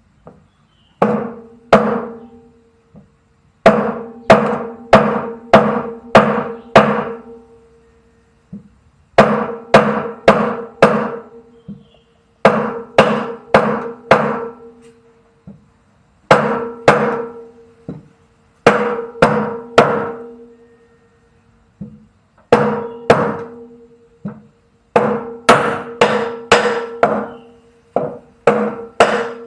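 Hammer blows on metal parts of a front-loading washing machine's drum assembly, struck in runs of five to seven about two a second with short pauses between runs, each blow leaving a metallic ring.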